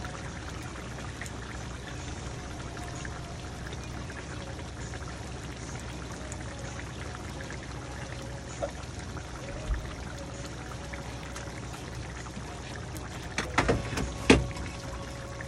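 Curry sauce simmering in a frying pan, a steady bubbling and sputtering. A cluster of louder clicks comes near the end.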